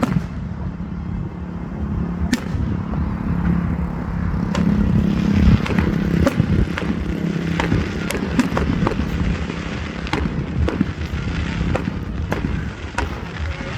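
Fireworks going off, a run of sharp cracks and bangs at irregular intervals, some with a short ringing tail, over a steady low hum.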